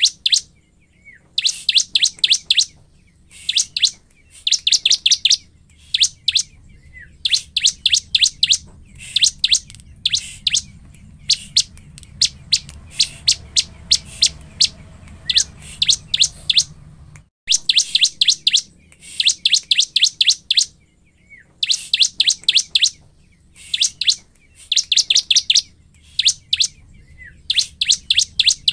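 A ciblek (prinia) singing: loud bursts of rapid, high chipping notes, each about a second long, repeated every second and a half or so.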